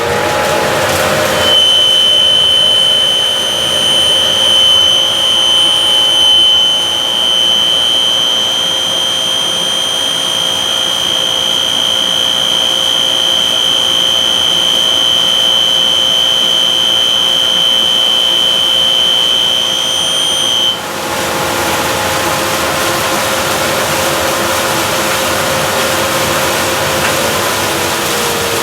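JCDC-2 machine running with a steady high-pitched squeal, the fault the owner is showing. The squeal cuts off suddenly about 21 seconds in while the motor keeps running, and the motor's pitch starts falling near the end as it winds down.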